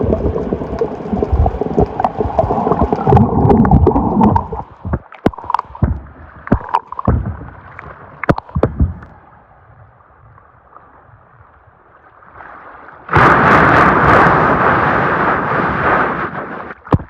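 Seawater being sucked into a hole in the rocks with a deep gurgling, glugging "gugogogo". It breaks into scattered pops and gulps about five seconds in and dies down. About thirteen seconds in, a loud rush of water surges in for several seconds.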